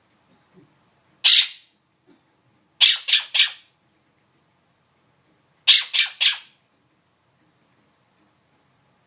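A pet bird squawking: one short squawk, then two runs of three quick squawks a few seconds apart.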